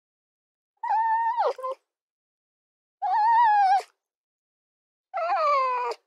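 Fox giving three drawn-out whining calls about two seconds apart, each just under a second long with a wavering pitch; the last one slides down in pitch.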